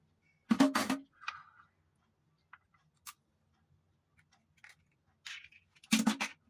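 Eggs being cracked open against small ceramic bowls: a sharp crack with shell crunching about half a second in and another near the end, with faint shell clicks between.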